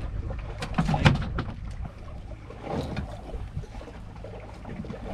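A small fishing boat on the water: a steady low rumble, with a cluster of knocks and thumps about a second in and a few more near the three-second mark.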